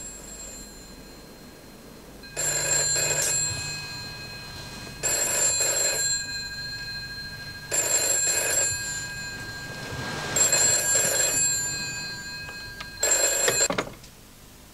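A red rotary-dial telephone's bell rings five times, each ring about a second long and spaced evenly. The last ring is cut short as the receiver is lifted.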